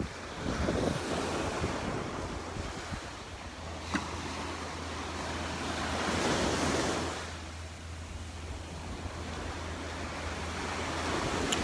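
Gulf surf breaking and washing up the beach, with wind buffeting the microphone; one wave swells loudest about six seconds in.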